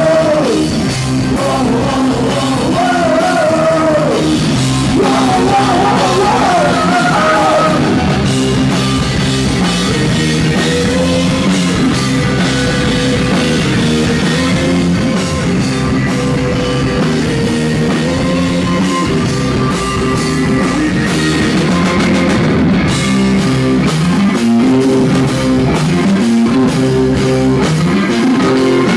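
Live rock band playing loud: electric guitar, bass guitar and drum kit together. A wavering high melody line sits over the first eight seconds or so, then the band settles into a steady repeating riff.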